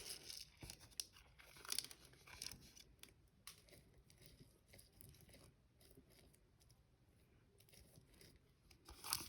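Faint, scattered crinkling and rustling of small plastic packaging and clay being handled, with a few slightly louder crackles in the first few seconds.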